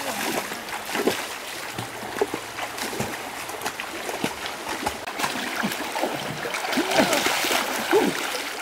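Water splashing and sloshing as people wade into a shallow, flowing river, over the river's steady rush; the splashing is loudest near the end, when a man plunges low into the water.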